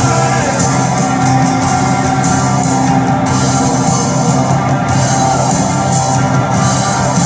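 Live rock band playing a loud, dense instrumental passage with electric guitar and drums, heard over an arena's PA without a break.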